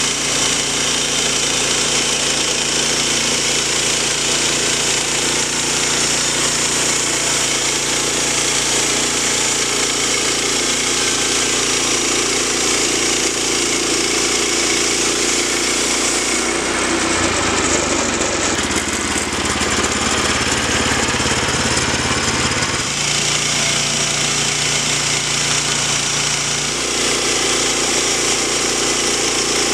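Woodland Mills HM122 portable bandsaw mill running steadily, its gas engine under load as the band blade cuts through a pine log. The engine note shifts for several seconds past the middle of the cut, then settles back.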